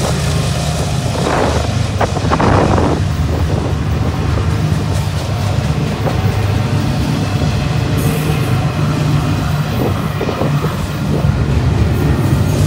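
BNSF double-stack intermodal freight train passing at speed: a loud, steady rumble of wheels on the rails as the last locomotive goes by and the loaded well cars follow.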